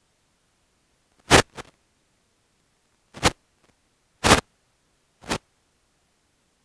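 Five short, sharp clicks at irregular intervals, the first two close together, with near silence between them.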